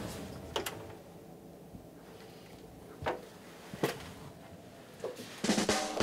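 A vinyl record playing on a turntable. A click comes as the stylus is set down, then a quiet intro with a few scattered drum hits, and the full band with drums comes in near the end.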